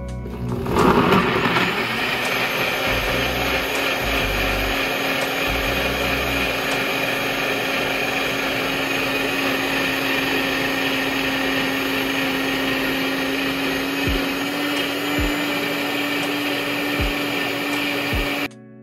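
Ninja personal blender running, blending a mango protein smoothie in its cup: a loud, steady whir with a louder churn about a second in as it starts. Near the end the motor's hum rises slightly in pitch as the mix smooths out, and it cuts off just before the end.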